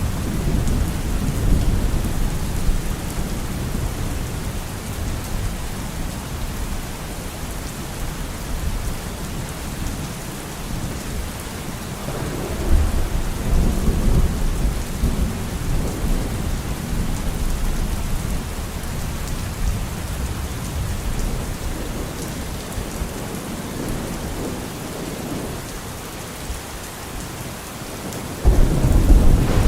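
Steady rain hissing, with deep rolls of thunder: one rumbling near the start, another swelling about twelve seconds in, and a louder one breaking in suddenly near the end.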